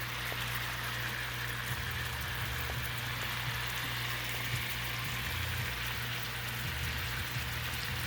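Monkfish pieces sizzling steadily in butter in a frying pan, an even, unbroken hiss over a low steady hum.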